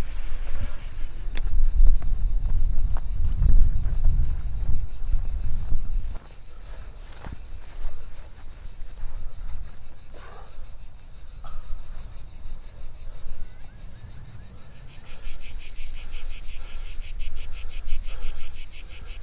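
Insects chirring in a fast, even, high-pitched pulse that grows louder and fuller near the end. A low rumble fills the first six seconds and then drops away.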